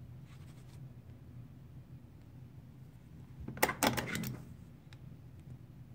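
A quick cluster of sharp metallic clicks and clacks from a pair of lever-action wire strippers being handled and worked, about three and a half seconds in, over a steady low hum.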